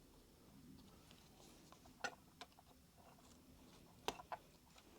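Faint plastic clicks as the top of an Alps keyboard switch housing is pried open. There are a couple of short ticks about two seconds in and two more about four seconds in; otherwise near silence.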